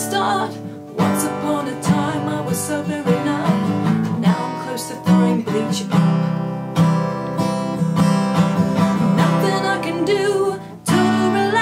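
Strummed acoustic guitar playing steady chords as song accompaniment, with a voice singing over it at times; the strumming breaks off briefly near the end.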